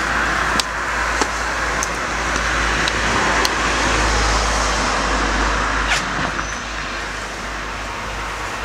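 A car passing on the road, its tyre and engine noise swelling to a peak about four seconds in and then fading, with a few footsteps in the first two seconds.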